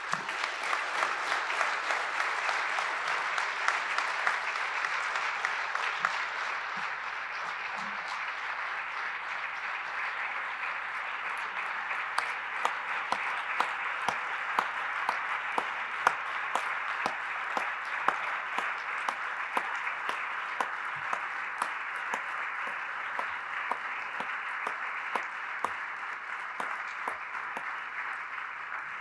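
A large audience applauding, a dense steady clapping that starts suddenly and eases a little after the first few seconds.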